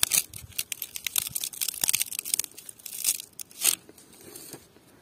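Dry date palm fronds and fibre rustling and crackling as a hand pushes through them, in irregular crackles that die away about four seconds in.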